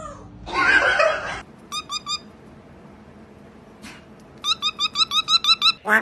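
A parrot mimicking a dog with one loud, rough 'woof'. Then come a few short high chirps, and near the end a fast run of squeaky repeated notes.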